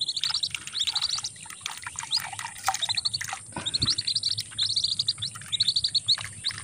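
Lesser whistling duck ducklings peeping: short, high, rising notes in quick runs of three to six, repeated over and over.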